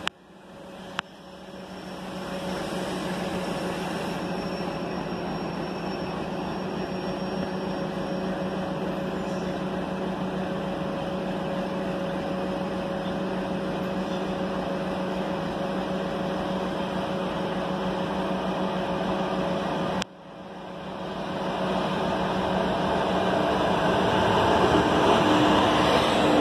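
Goods train hauled by twin WAG5 electric locomotives approaching and drawing alongside: a steady hum over a rumbling rail noise. The sound drops out sharply about two-thirds of the way through, then grows steadily louder as the locomotives arrive. There are two sharp clicks in the first second.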